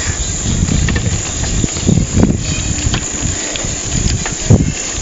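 Wind buffeting the microphone of a camera carried on a moving bicycle: a steady low rumble with a few short knocks and a louder bump near the end.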